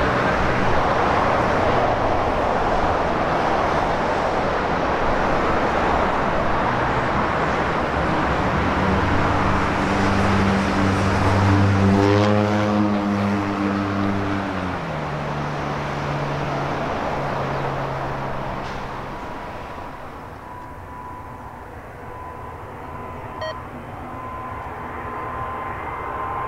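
Airbus A320neo jet engines running at high power on the runway: a loud, even jet roar with low steady tones, and a sweep of rising tones partway through. After about twenty seconds it grows quieter, and a thin steady whine edges up in pitch near the end.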